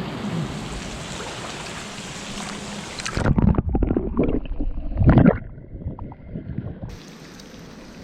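Steady rush of river water, then from about three seconds in a couple of seconds of loud, irregular splashing and knocking as a caught trout is let back into the water.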